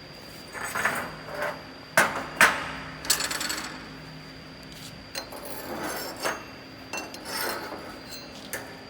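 Metal knocking and scraping: two sharp knocks about two seconds in, with rubbing and scraping strokes before and after them and a few lighter clinks.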